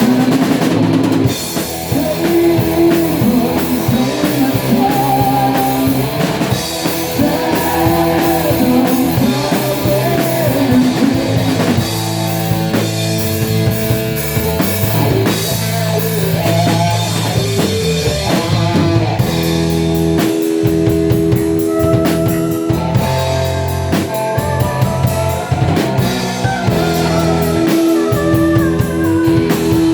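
A rock band playing: drum kit and guitar, with held chords that change several times.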